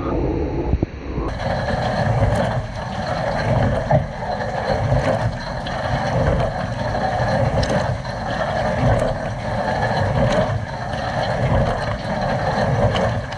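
Water jets spraying and splashing inside a running dishwasher during its wash cycle, a dense rushing noise with a low rumble and recurring splashes, heard from close up inside the tub.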